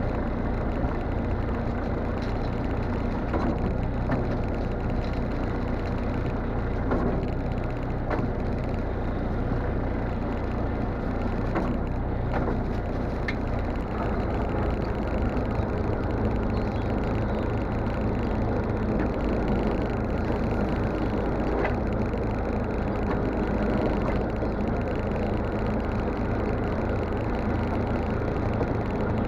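A shrimp trawler's engine running steadily as the net drum winds in the trawl net, with a few faint knocks.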